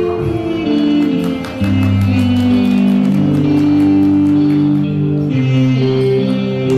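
Instrumental music led by guitar, with sustained bass and chord notes changing every second or so over a steady light beat.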